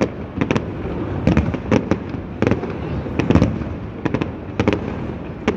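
Aerial fireworks display bursting: rapid, irregular sharp bangs and cracks, several a second, over a continuous low rumble.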